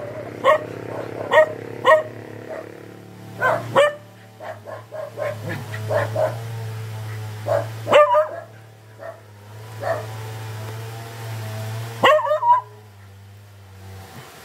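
A dog barking upward in short, sharp single barks with pauses between them, about ten in all. A steady low hum runs underneath from about four seconds in until near the end.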